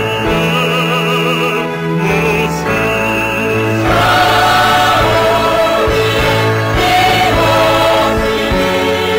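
A male solo voice singing a slow musical-theatre number with orchestra, joined by the full cast in chorus about four seconds in.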